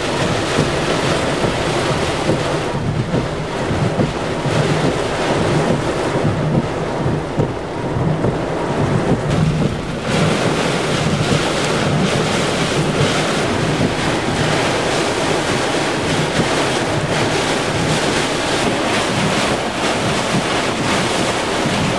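Torrential rain pouring down in a steady, heavy hiss from a flash-flood downpour. The hiss dulls for several seconds, then brightens abruptly about ten seconds in.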